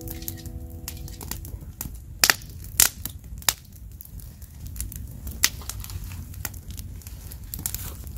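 Wood fire crackling, with irregular sharp pops of differing loudness.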